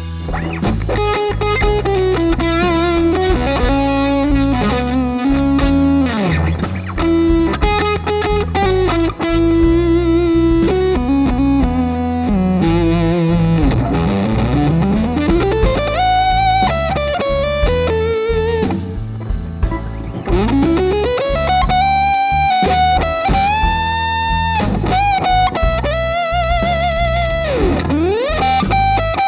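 Electric guitar through the Nux Amp Academy's Slo 100 model (a Soldano SLO-100 high-gain amp emulation) on its drive channel, playing blues lead lines with frequent string bends and vibrato. A blues backing track with a steady drum beat plays under it.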